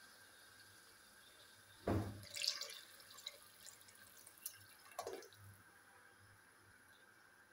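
Water poured from a cup down the side of an aluminium pot of simmering stew base: a splash about two seconds in with brief spattering, a few drips, then a second splash about five seconds in.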